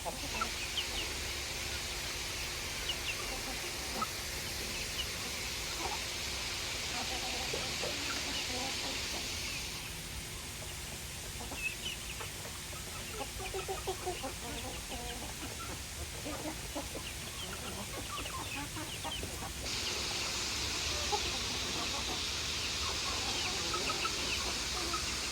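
Chickens clucking, with many short, scattered calls. Under them a steady high hiss stops abruptly about ten seconds in and starts again abruptly near the end.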